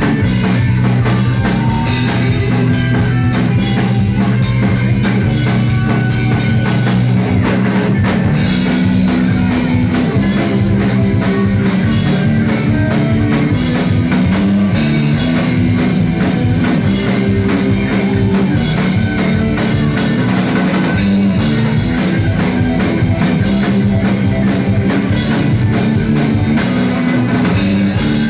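Rock band playing: drum kit keeping a steady beat under guitar and bass, continuous and loud.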